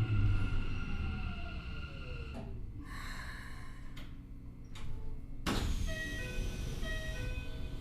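Keikyu 1000 series train's Mitsubishi IGBT-inverter traction motors whining, several tones falling in pitch over the first couple of seconds; this car's motor noise is unusually loud, a so-called abnormal-noise car. About five and a half seconds in, a sudden loud rushing noise starts under the running sound.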